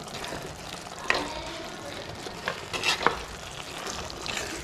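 A steel spoon stirring fried sardines through a thick, sizzling onion masala in a clay pot. A few sharp clicks of the spoon against the pot break the steady sizzle.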